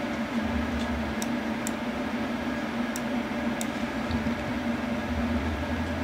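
Steady background hum and hiss, with about four faint mouse clicks in the first four seconds.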